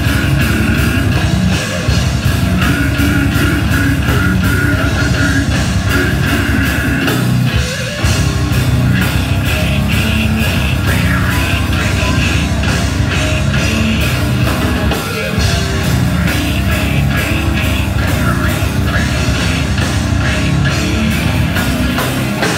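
Live slam death metal band playing: distorted electric guitar and bass over a fast drum kit, with vocals, broken by a few short stops.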